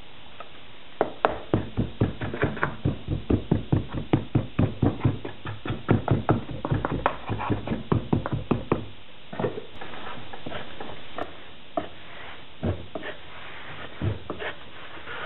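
Moulding sand being rammed into a wooden casting flask with a wooden block rammer: quick, sharp knocks about four a second for some eight seconds, then slower scattered knocks and rubbing as the sand surface is worked level.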